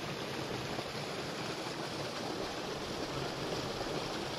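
Steady outdoor background noise, an even hiss-like rush with no distinct events.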